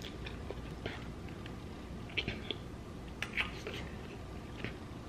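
Close-miked chewing with soft, wet mouth clicks and lip smacks, a few at a time, while eating a seafood boil.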